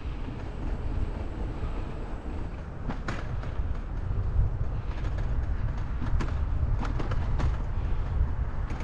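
Wind and road noise of a bicycle rolling along a paved street at speed: a steady low rumble, with a few sharp rattles in the middle and later part.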